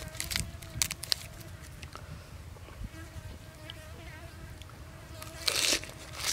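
Crisp leaves crackling as a leaf wrap is folded in the hands, then, about five and a half seconds in, a loud crunchy bite into the wrap. A faint, steady insect buzz runs underneath.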